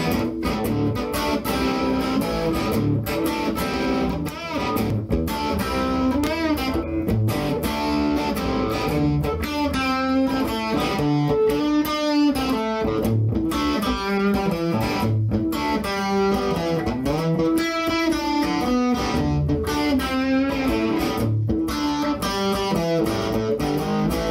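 Solo guitar music: a melodic lead line with wavering, bent notes over lower bass notes.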